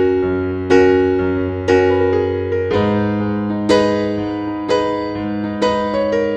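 Background piano music: slow notes and chords struck about once a second, each ringing out and fading, a little quicker near the end.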